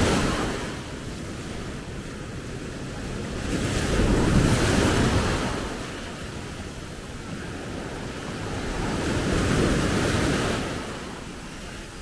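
Small sea waves breaking and washing up a sandy beach, the rush of surf swelling and ebbing three times, about every five seconds.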